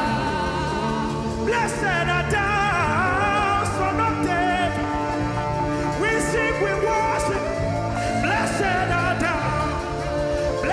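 Live gospel worship music: singing voices with vibrato over sustained keyboard chords and a steady drum beat.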